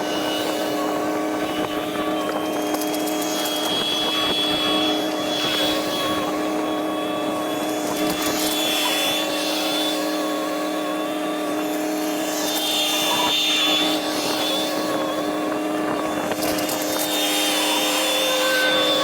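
Gehl skid steer engine running at a steady speed, with a high whine that swells and fades four or five times.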